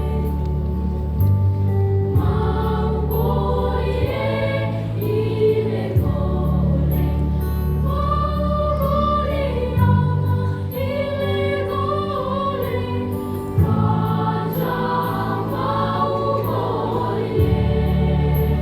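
A junior high school choir singing a song in several parts, with low notes held under moving upper lines.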